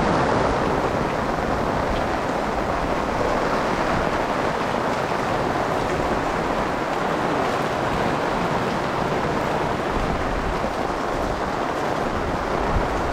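Heavy rain falling, a steady, even rushing noise.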